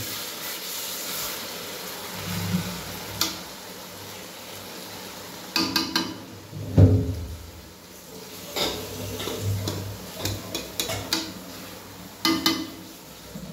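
Onion and tomato masala frying in a metal kadai, sizzling, while a metal spatula scrapes and knocks against the pan as the masala is stirred. The scrapes come every second or two, with the loudest clunk about seven seconds in.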